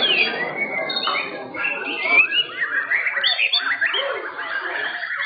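White-rumped shamas singing: a dense run of quick whistled and chirping phrases with sliding notes.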